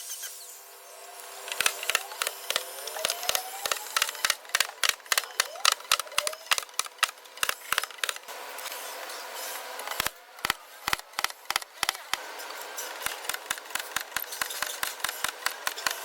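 Hand tools working on a car's fender: a long run of sharp taps and knocks, several a second, with a brief lull about two-thirds of the way through.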